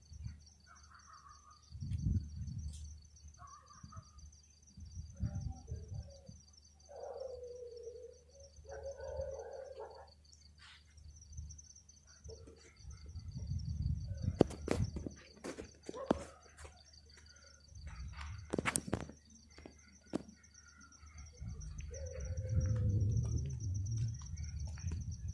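Outdoor ambience picked up by a hand-held phone while walking: intermittent low rumbles and sharp knocks from handling and wind on the microphone, a few short pitched calls, and a faint steady high-pitched whine.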